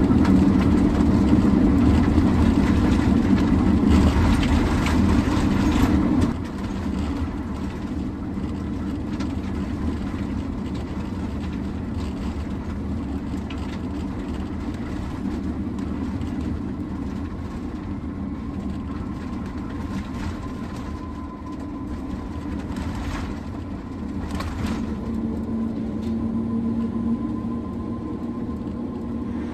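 Sprinter van driving on a gravel road: steady tyre and engine rumble that drops in level about six seconds in. Near the end a steady hum joins it as the tyres run onto the steel grate deck of a truss bridge.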